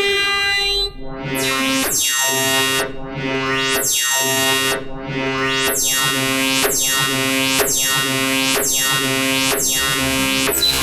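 Black MIDI music played back through a synthesizer: a dense, loud wall of sustained chords, with fast falling note sweeps about once a second.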